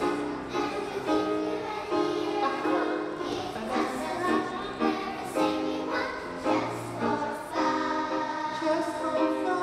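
A children's choir singing, the words "give us a tune ... where we're singing one just for fun".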